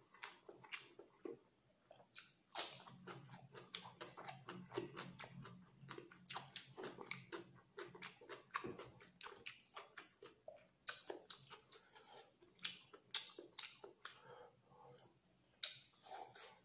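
Close-miked wet chewing and lip-smacking of curried chicken liver and rice, a dense run of sharp mouth clicks.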